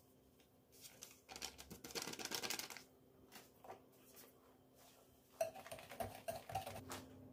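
Handling noises: a burst of rapid rustling clicks, then a few sharp clicks and light knocks near the end.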